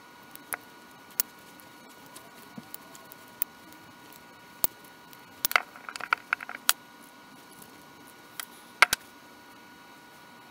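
Scattered sharp clicks and taps of small metal vise parts and tools being handled during reassembly of a small bench vise, with a quick run of clicks about halfway through. A faint steady hum lies underneath.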